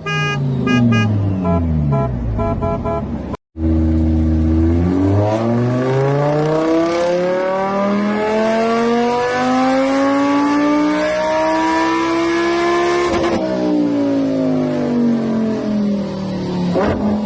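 Car engine revving: the pitch falls away over the first few seconds. After a brief cut it climbs in one long steady rise for about nine seconds, then eases off near the end.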